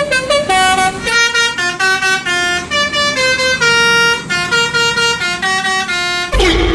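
Basuri 'telolet' musical bus horn playing a tune of short, stepped notes, a few a second, with one longer held note about four seconds in. Near the end the sound slides downward and cuts off suddenly.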